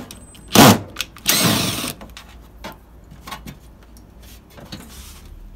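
Power drill briefly running about a second in, backing a screw out of a window-type air conditioner's sheet-metal casing, with a sharp knock before it and light clicks after.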